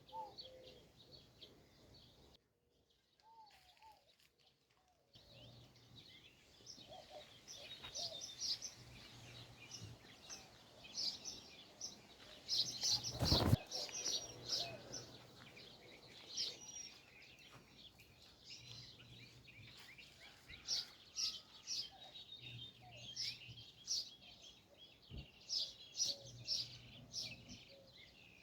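Many birds chirping in short, high calls, with a brief drop to near silence early on and one sharp knock about thirteen seconds in.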